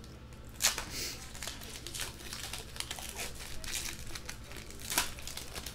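Foil trading-card pack wrapper being torn open and crinkled by hand: irregular crinkling crackles, with a sharper crackle about half a second in and another near the end.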